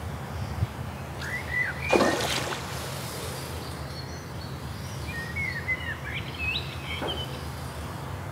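Small birds chirping, short rising-and-falling calls in two bouts, over a steady low hum. About two seconds in, a short loud rushing noise, and a fainter one near the end.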